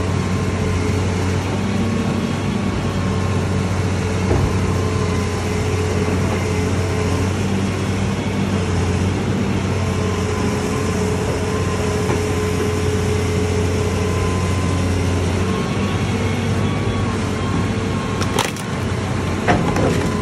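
Hitachi tracked excavator's diesel engine running steadily under load, with a steady whine over the engine note. Near the end come a couple of sharp knocks as the machine starts into the house.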